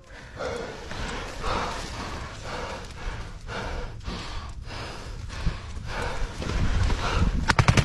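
Rhythmic rustling of clothing and gear with heavy breathing close to the microphone as a soldier shifts and moves in a trench, then a short burst of rapid gunfire cracks near the end.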